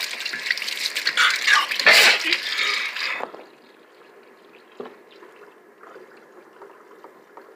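Kitchen tap running into a stainless steel sink, with loud splashing for about the first three seconds as a hand goes into the stream. It then drops suddenly to a faint, steady trickle.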